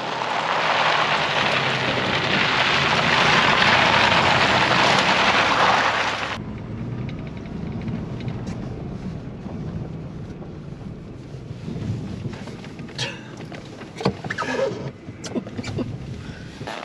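Pickup truck driving on a dirt mountain road: a loud, steady rush of wind and tyre noise that cuts off suddenly about six seconds in. Then the truck's low engine hum is heard from inside the cab, with a few clicks and rattles near the end.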